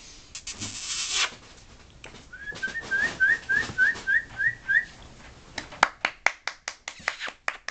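A person whistling a run of about ten short rising chirps, about four a second, calling a puppy. Near the end comes a fast series of sharp clicks.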